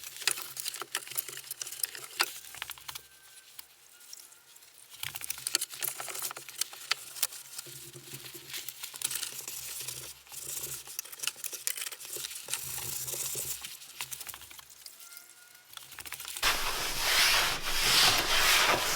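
Hand-cleaning of surfaces inside a bus: scratchy rubbing and wiping, with scattered small knocks and clicks. A louder steady hiss comes in near the end.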